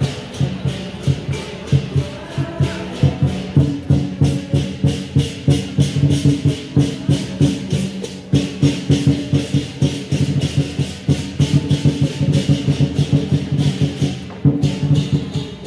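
Southern lion dance band of a big drum and clashing cymbals beating a fast steady rhythm, about three to four strokes a second. The cymbals drop out for a moment near the end.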